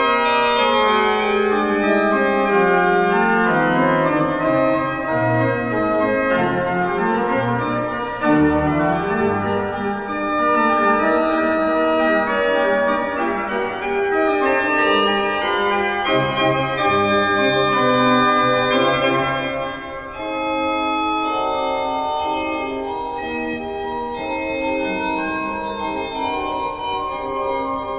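Church pipe organ played on manuals and pedals: a slow piece in several voices of held, overlapping notes, with low pedal bass notes coming in and out.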